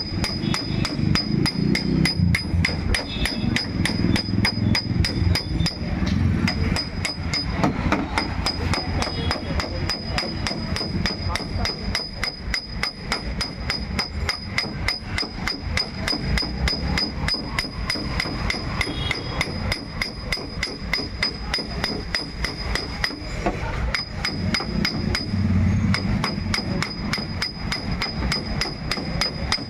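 Small hammer tapping steadily on a car's sheet-metal body panel, about four light taps a second: paintless dent repair tap-down work.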